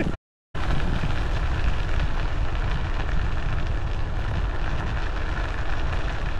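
Wind buffeting the microphone of a camera carried on a moving electric unicycle: a steady rushing noise, heaviest in the low end. The sound cuts out completely for a moment just after the start.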